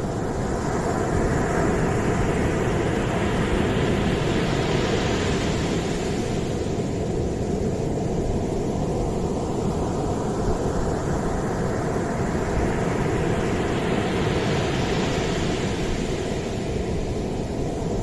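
Sea surf breaking on a sandy beach: a steady rumble with two slow surges of rising hiss as waves break and wash up the shore, one early on and one past the middle.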